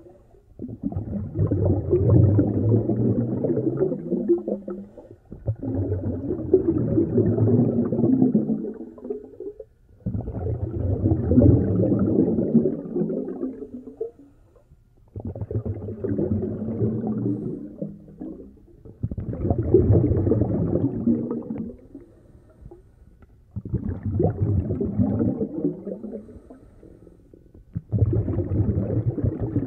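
A scuba diver's regulator exhaling underwater: bursts of bubbling about every four to five seconds, seven in all, each lasting a few seconds with short quieter gaps for inhaling between them.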